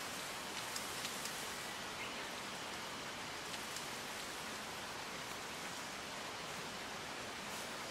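Steady outdoor background hiss under leafy trees, with a few faint light ticks in the first second and a half and once or twice later.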